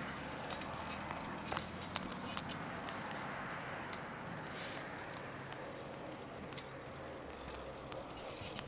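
Fixed-gear bike (a Mercier Kilo TT) riding along: a steady rush of tyre and wind noise on the handheld camera's microphone, with a few light clicks and knocks about one and a half to two seconds in.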